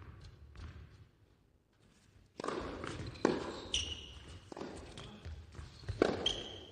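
Tennis point on an indoor hard court: a few faint ball bounces, then four sharp racket strikes on the ball, the serve about two and a half seconds in and the rally shots roughly a second and a half apart, echoing in the hall. Short high squeaks of shoes on the court come between the shots.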